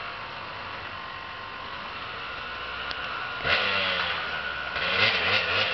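Dirt bike engine labouring up a hill climb, getting louder about three and a half seconds in, then revving up and down repeatedly near the end.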